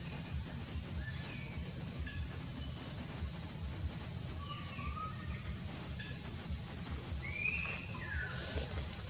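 Steady high-pitched drone of insects in the forest, with a few faint chirping calls; the clearest one falls in pitch about seven and a half seconds in. A low rumble runs underneath.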